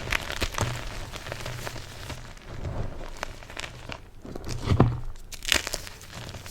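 Soft, crusty, yellow-dyed BSN gym chalk being crushed: irregular crunching and crumbling with small sharp crackles, and two louder crunches in the second half.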